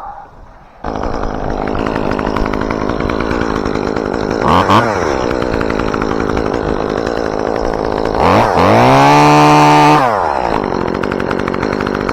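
Chainsaw starts running about a second in and idles. It is blipped once near halfway, then revved to full throttle for about two seconds and let back down to idle.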